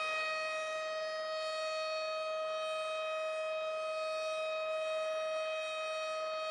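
Civil defense (tornado warning) siren holding one steady, unchanging tone.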